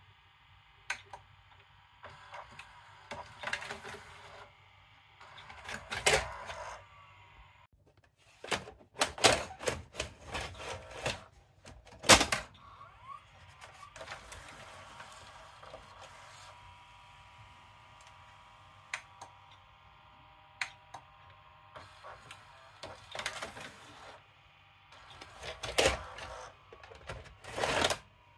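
The tape mechanism of an opened LG EC290W VHS VCR working as a cassette comes out: irregular mechanical clicks and clatter, with a stretch of steady motor whirring in the middle.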